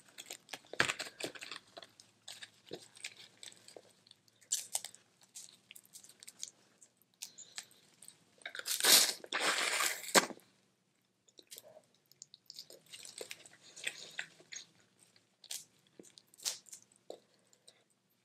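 Crawfish being shelled and eaten close to the microphone: shells crackling and crunching, and chewing, in scattered short bursts. There is a louder, longer noisy stretch about nine seconds in.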